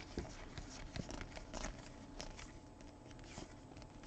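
Faint, scattered clicks and rustles of a stack of trading cards being flipped through by hand, one card slid behind another.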